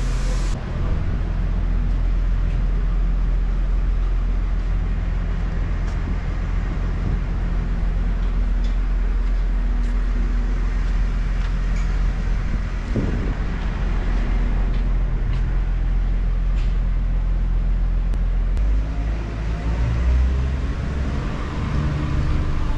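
A tractor's diesel engine running steadily, its low drone changing somewhat about 19 seconds in.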